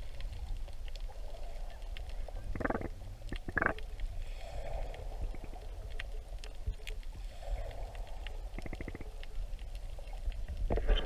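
Underwater ambience in a shallow lagoon: a steady low rumble with slow swells of hazy noise and many scattered faint clicks and crackles. Two short, sharper knocks come about three seconds in, and a quick run of rapid clicks comes near the end.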